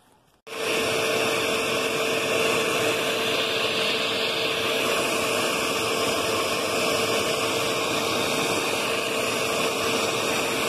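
Electric mixer running steadily while whipping a batch of body butter, a loud even whir with a steady hum; it starts about half a second in and cuts off abruptly at the end.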